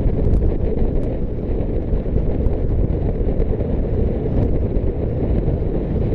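Wind buffeting the microphone of a rider moving on an electric unicycle: a loud, steady, low rumble with a few faint ticks.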